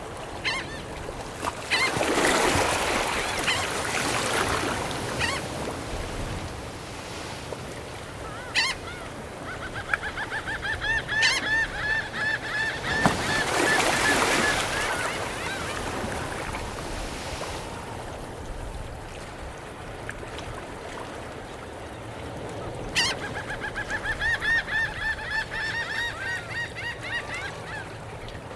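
Seagulls calling in long runs of quick repeated notes, once about halfway through and again near the end, with single calls between. Waves swell and wash in over the tidepools twice.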